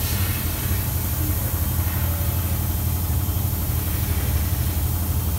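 Compressed air hissing steadily from a hand-held blow nozzle, clearing loose powder off a freshly 3D-printed ceramic plate, over a steady low machine hum.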